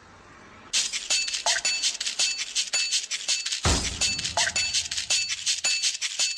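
Title-sequence theme music built from fast, rhythmic bright metallic clinks, starting suddenly about a second in and joined by a deep bass beat a little past halfway.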